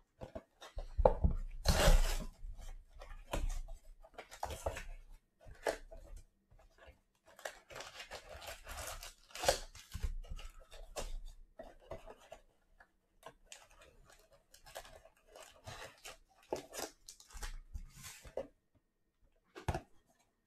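A cardboard trading-card box being torn open and its foil-wrapped card packs pulled out: irregular tearing, crinkling and rustling of cardboard and foil. There are louder handling knocks against the table in the first couple of seconds.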